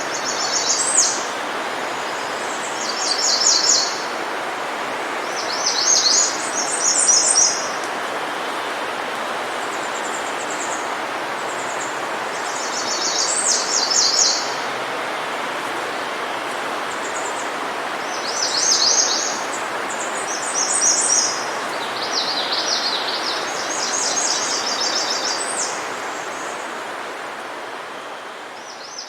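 A bird singing short, rapidly pulsed high trilling phrases every two to three seconds over a steady rushing background noise. The sound fades out over the last few seconds.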